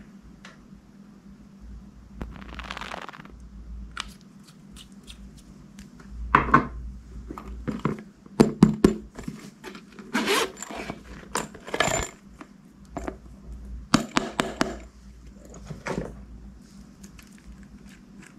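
Clear glossy slime being handled and mixed by hand, giving sticky clicks, pops and squelches. It starts with sparse clicks, then comes in denser, louder clusters from about a third of the way in.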